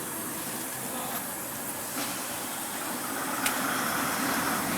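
A 20-ton excavator's diesel engine being started from the cab: a sharp click about three and a half seconds in, then the engine noise rises as it starts.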